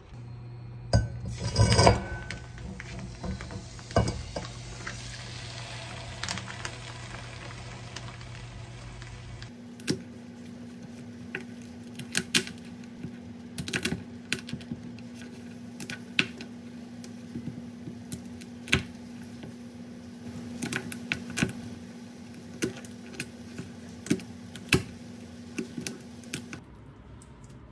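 Kitchen knife chopping raw blue crabs into pieces on a wooden cutting board: irregular sharp knocks, a few a second. These follow a short clatter and a steady hiss at the sink in the first few seconds.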